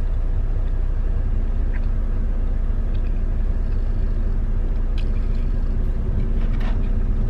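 Steady low rumble of a truck's engine heard inside the cab, even in level throughout, with a few faint small clicks.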